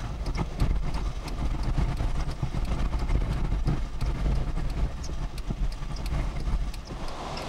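Tropical-storm wind making a heavy, uneven low rumble, with irregular sharp clicks and taps a few times a second.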